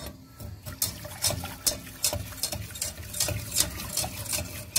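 Wire whisk stirring a thickening white sauce in a metal saucepan: liquid sloshing, with the whisk's wires knocking and scraping against the pan in a steady rhythm of about two to three strokes a second.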